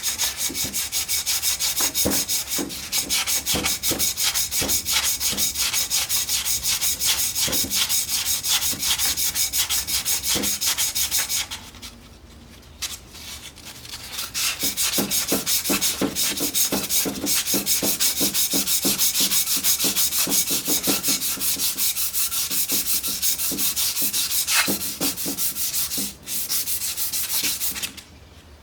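Abrasive cloth rubbing back and forth over a crankshaft rod journal in rapid strokes, polishing the journal. Two long bouts, with a pause of about two seconds in the middle.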